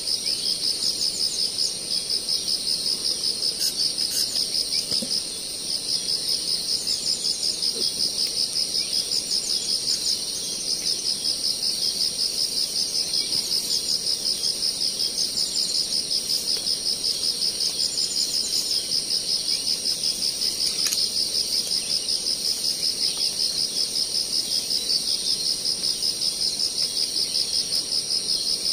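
Loud insect chorus: a continuous high-pitched buzzing trill that pulses evenly several times a second, with a few faint bird chirps and an occasional light click.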